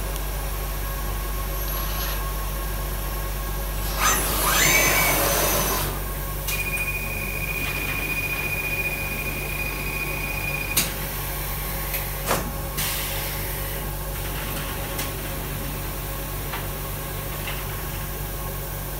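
Automated robotic production cell running with a steady low machine hum. About four seconds in comes a loud rush of air lasting about two seconds, then a steady high-pitched tone for about four seconds, and a few sharp pneumatic clicks.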